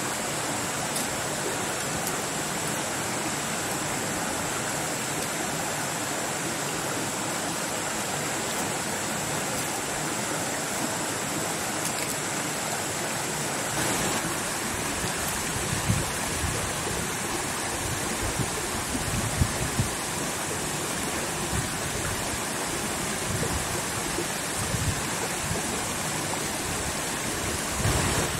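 A stream running steadily, with a thin high whine held throughout. From about halfway in, a few dull low knocks.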